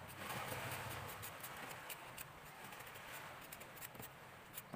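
Kitchen knife scraping and shaving the skin off a ginger root: a run of small, irregular scratchy clicks.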